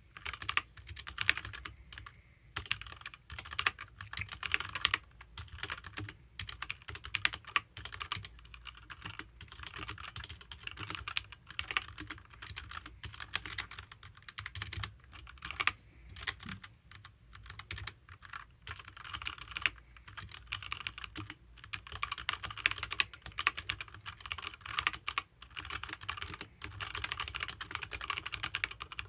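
Fast typing on a HyperX Alloy Origins mechanical keyboard with HyperX Red linear switches: rapid, continuous key clacks in bursts with short pauses between words.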